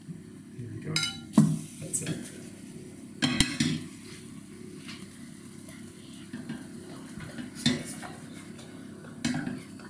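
A fork scraping and clinking against a frying pan and plate as a pancake is lifted out, with a few sharp clatters about a second in, around three and a half seconds in and near the end, while batter fries in the pan. A steady low hum runs underneath.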